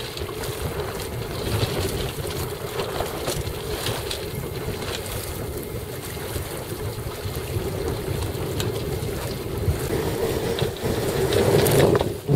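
Wind buffeting the microphone aboard a sailboat under way, a steady rushing noise that grows louder near the end.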